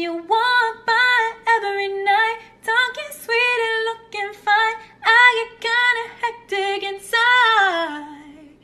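A woman singing solo without accompaniment, in short phrases with sliding notes, ending on a long note that falls in pitch near the end.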